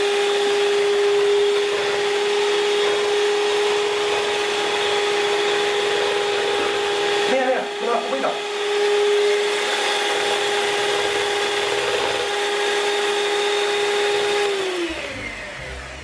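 Electric hand mixer running with a steady whine, its beaters whisking a thin egg and condensed-milk batter in a plastic bowl. The motor winds down and stops about a second before the end.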